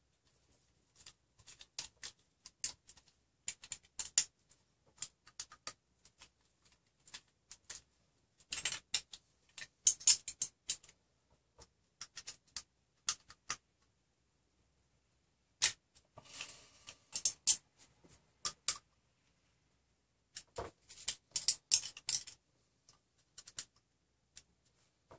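Screwdriver tightening M3 bolts into lock nuts on a 3D-printer extruder to clamp the hot end: irregular small clicks and ticks of the tool and hardware, in clusters, with a pause of about two seconds in the middle.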